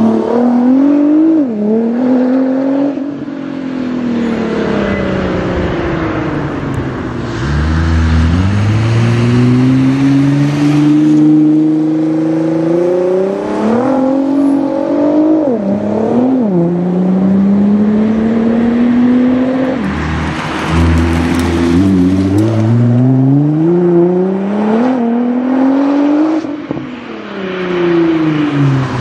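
Nissan GT-R R35's twin-turbo V6, tuned to about 700 hp and breathing through an Akrapovic exhaust, accelerating hard through the gears: the engine note climbs and drops sharply at each upshift, several times over, with slower falling stretches as the car lifts off and passes by.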